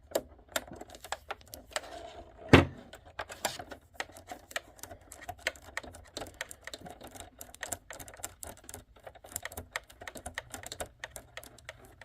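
Irregular clicks and taps of hands working at the parts of a Singer Heavy Duty sewing machine, with one louder knock about two and a half seconds in.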